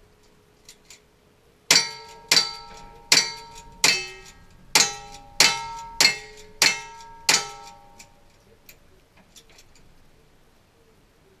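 A rapid string of about nine gunshots, roughly two-thirds of a second apart, from a cowboy action shooting stage. Each shot is followed by the ring of a struck steel target.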